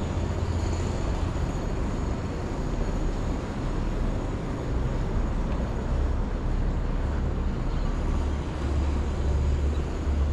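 Outdoor city ambience: a steady low rumble of distant engines and traffic with an even background hiss and a faint thin high whine, no single event standing out.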